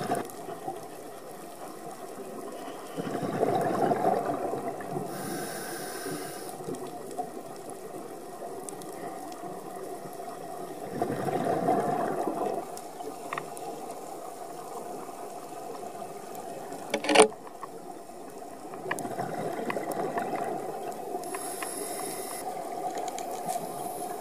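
Scuba diver breathing through a regulator underwater: exhaled bubbles rise in noisy swells about every eight seconds, with a thin high hiss twice between them. A single sharp click about two-thirds of the way through is the loudest sound.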